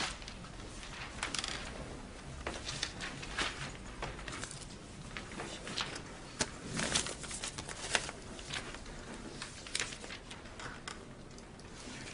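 Scattered small clicks and taps at irregular intervals, over a faint room background.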